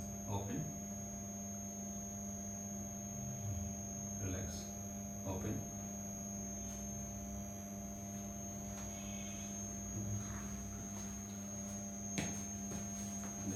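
Steady electrical hum with a constant high whine above it, broken by a few faint short sounds about four and five seconds in and a sharper click near the end.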